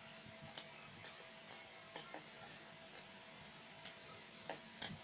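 Faint, irregular clicks and taps of a utensil against a bowl as dry ingredients are stirred together, a little louder near the end, over a faint steady hum.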